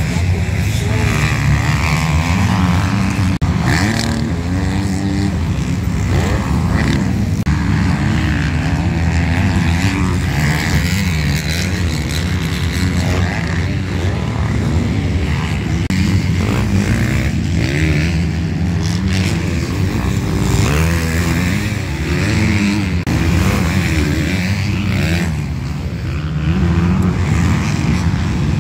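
Motocross dirt bike engines revving hard on the track, their pitch rising and falling with each throttle change as the bikes accelerate, jump and corner. More than one bike is heard at once.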